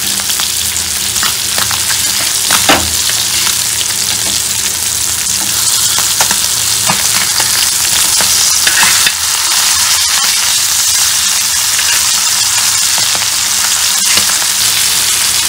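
Marinated kilanga fish shallow-frying in oil on an iron tawa: a steady sizzle, with scattered scrapes and clicks of a spatula as the fish are turned over.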